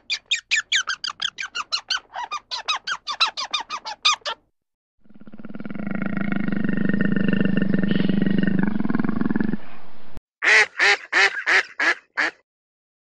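Animal calls: a fast run of short repeated high calls, then one long, low drawn-out call of about five seconds that swells in and cuts off abruptly, then another fast run of short calls.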